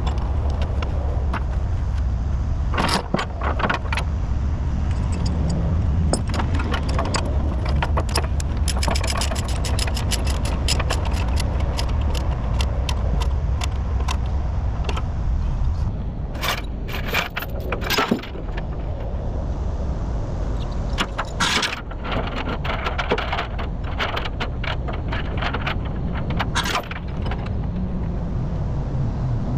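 Steel tie-down chains rattling and clanking as they are handled, with many sharp metallic clinks, over the steady low hum of an idling engine that drops away about halfway through.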